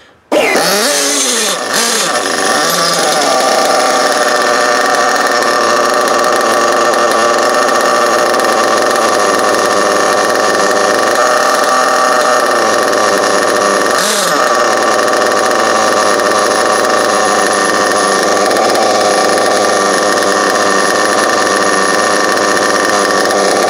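Picco .28 nitro RC engine, fitted with ceramic bearings, catches on the starter box about half a second in and settles into a steady idle. Its pitch dips briefly once, about 14 seconds in.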